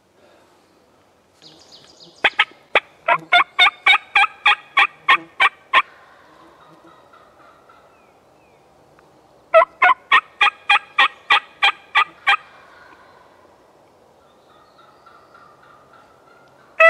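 Turkey calling: two long runs of evenly spaced, loud notes, about four a second, the first starting about two seconds in and the second near the ten-second mark.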